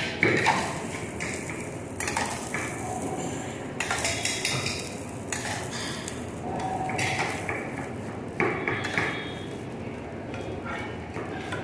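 Steel ladle clinking against a steel mug and tapping on a hot dosa griddle as oil is sprinkled over the dosas: scattered short clinks and knocks over a steady hiss.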